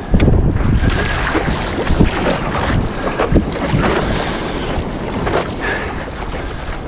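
Wind rumbling on the microphone over water splashing and rushing along a stand-up paddleboard as it is paddled through the ocean, with scattered short splashes of the paddle blade entering the water.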